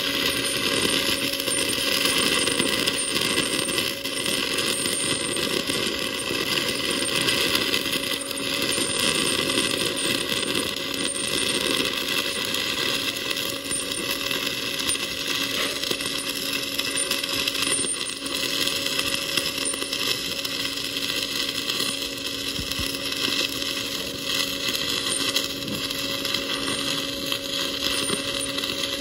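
Stick-welding arc of a 1/8-inch Lincoln 5P 6010 electrode burning on a steel T-fillet joint, a steady crackle as the bead is run with an up-down whip motion.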